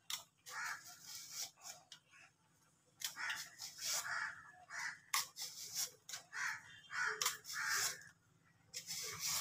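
Small knife scraping and shaving the skin off a raw green mango in short strokes, about two or three a second, with a brief pause a couple of seconds in.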